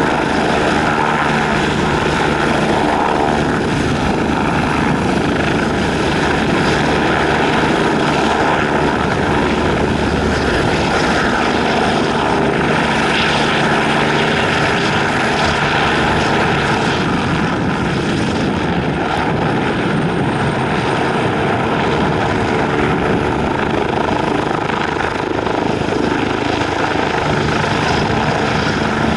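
Eurocopter EC-145 helicopter running close by: twin turbine engines and main rotor with a steady, loud whine and rotor noise that holds an even level throughout.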